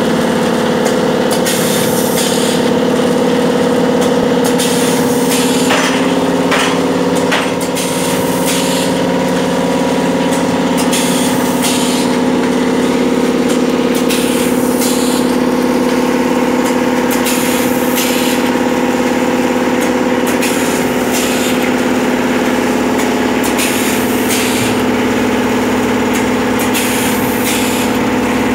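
Pneumatic vertical form-fill-seal pouch packing machine with a servo auger filler running, packing 500 g pouches of gram flour (besan): a steady motor hum with short air hisses every few seconds as the pneumatic jaws cycle.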